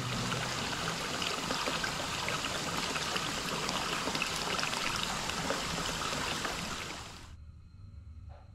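Hot-spring water pouring from a spout into a full bath, a steady splashing stream. It cuts off about seven seconds in, leaving a quiet room.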